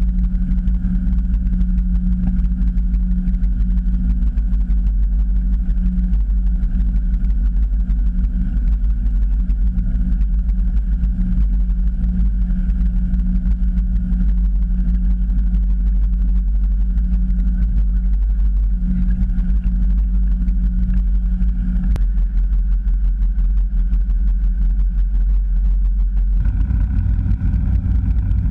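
A sailing yacht's inboard engine runs steadily while the boat motors along, heard as a constant low hum. About two-thirds through there is a single faint click. Near the end the hum changes to a fuller, richer tone.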